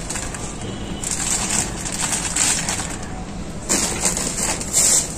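Plastic bag crinkling and rustling as compost is shaken out of it into a plastic bucket of potting soil, in several spells of rustling with brief lulls between them.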